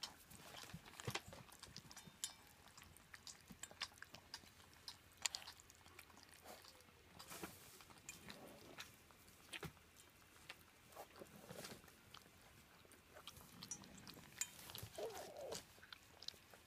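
German Shepherd puppies eating from a stainless steel bowl: faint chewing and crunching with scattered small clicks and taps.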